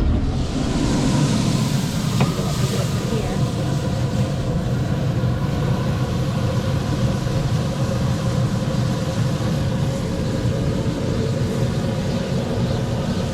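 A steady low mechanical rumble with a constant hum, with a band of hiss over the first few seconds.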